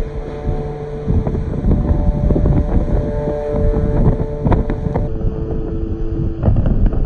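Rumble of a moving train heard from a window or door open to the air, with wind buffeting the microphone. Scattered clicks and knocks from the wheels on the track come through, a couple of them louder, about four and a half and six and a half seconds in, along with a few steady hum tones.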